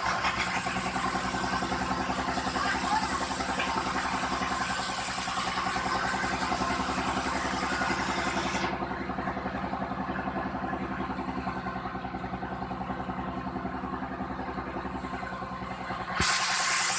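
Sawmill machinery's engine running steadily with a rapid, even pulse. A harsher, hissing noise over it stops about nine seconds in and returns suddenly near the end.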